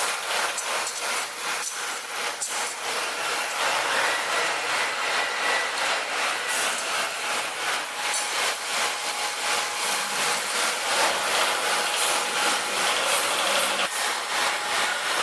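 Tire shredder of a TDF (tire-derived fuel) recycling line running: a steady grinding, scraping noise with no clear rhythm.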